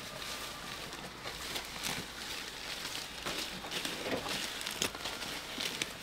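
Water buffalo feeding on a pile of cut leafy grass and branches: irregular rustles and short crackles of foliage as it tears and chews.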